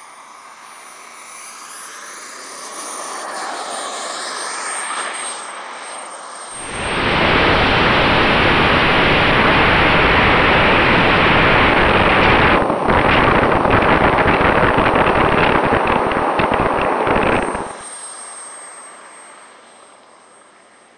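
Radio-controlled model jet running with a steady high whine. Its sound swells as it flies past, then from about six seconds in becomes a loud rush of engine and wind noise heard from a camera on board the model as it runs along the runway. This rush drops off abruptly near the end and fades away.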